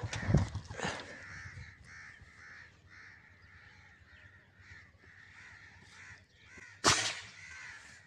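Crows cawing repeatedly in short calls, then a single sharp air rifle shot about seven seconds in, the loudest sound here.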